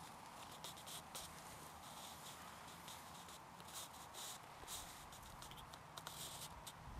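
Faint, irregular rustling and swishing of tall grass stalks over a low steady hum.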